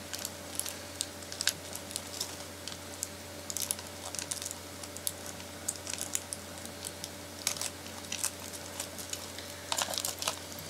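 Irregular small clicks, ticks and crinkles of hands working at a doll's plastic and cardboard packaging, a few a second, over a steady low hum.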